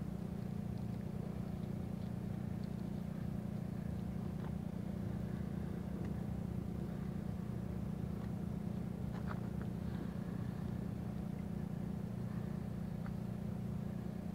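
A steady low rumble, with a few faint scattered clicks as twigs and sticks are handled in a stone-lined fire hole.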